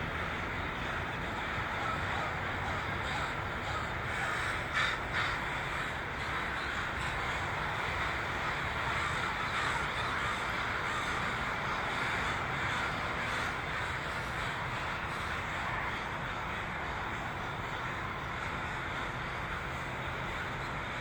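A huge flock of crows gathering at sunset, cawing continuously: countless overlapping caws merge into a dense din, with a couple of louder, closer caws about five seconds in.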